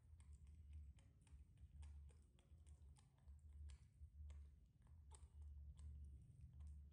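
Near silence with faint, irregular mouth clicks from small monkeys eating: a baby monkey lapping food off a metal spoon while an older one chews. A low steady hum lies underneath.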